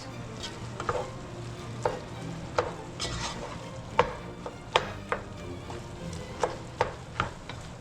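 Ground chicken frying with a steady sizzle while a cooking utensil stirs and chops at it in the pot, knocking against the pot about once a second. The meat is being broken up so it cooks loose and not lumpy.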